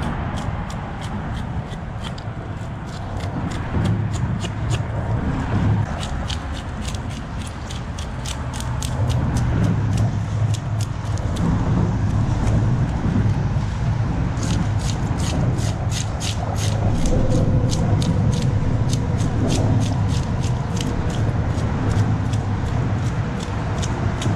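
A knife scraping the scales off a fish, a long run of short rasping strokes at about three a second, with a steady low rumble underneath.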